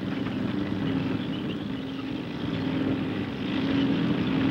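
The Universal Engineer Tractor's 250-horsepower V8 diesel engine running under load as the tracked earthmover pushes dirt and drives, a steady rough drone that grows louder toward the end.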